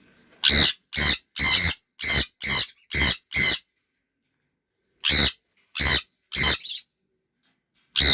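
Parrot squawking: a run of seven loud calls about two a second, a pause, three more, then one more near the end.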